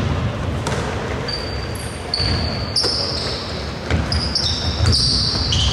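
A basketball bouncing on an indoor court with sneakers squeaking against the floor as players move, several short high squeaks from about a second in.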